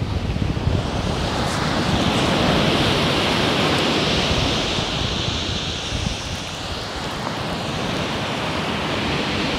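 Surf breaking and washing over a shingle beach: the wash swells about two seconds in, eases off past the middle and builds again. Wind buffets the microphone, heaviest near the start.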